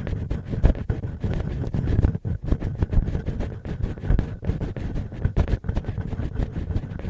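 Fingertips and fingernails scratching and rubbing directly on a binaural microphone's ear: a continuous close scraping with a heavy low rumble and many quick sharp clicks from the nails.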